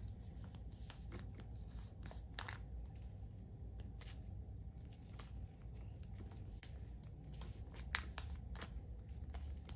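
Photocards slid into clear plastic binder sleeves: faint scattered rustling of the plastic pocket pages and small clicks of the cards, with one sharper click about eight seconds in.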